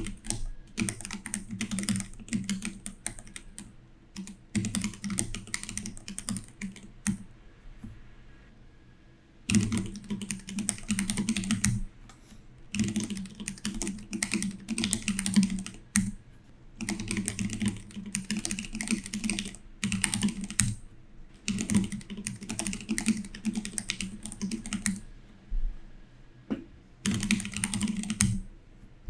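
Fast typing on a mechanical keyboard, coming in bursts of a few seconds with short pauses between them.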